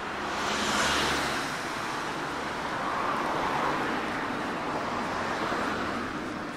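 Cars passing close by on a town street, one after another: the hiss of tyres and engines swells as each goes by and fades, loudest about a second in.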